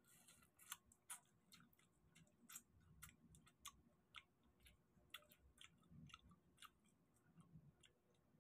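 Faint eating sounds: close-up mouth clicks, lip smacks and chewing of garlic butter prawns, mixed with the wet crackle of prawn shells being peeled by hand. They come as short sharp clicks at irregular intervals, a few a second, over a soft low rustle.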